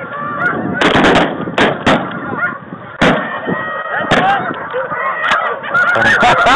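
Snow geese honking continuously while shotguns fire a volley of about five shots in the first four seconds.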